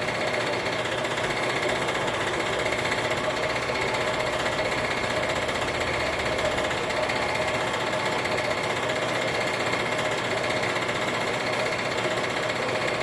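Metal-cutting bandsaw running steadily, its blade cutting down through a thick aluminum bar lubricated with WD-40, near the end of the cut.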